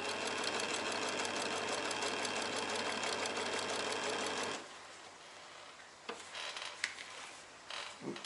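Singer electric sewing machine stitching at a steady speed, its needle mechanism clattering in a fast, even rhythm, stopping suddenly about four and a half seconds in. After that, a few light clicks and rustles.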